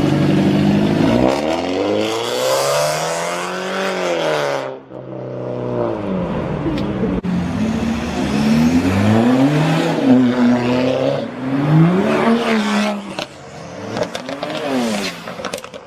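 Performance car engine revved through a loud exhaust: one long rev that climbs and falls away, then a string of short, quick rev blips.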